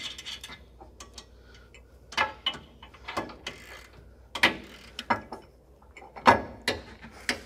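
Hand ratchet wrench with a 3/4-inch deep-well socket clicking and steel tools clinking while the jam nuts on a gooseneck hitch base's set screws are run tight: irregular clicks with a few louder metal clanks.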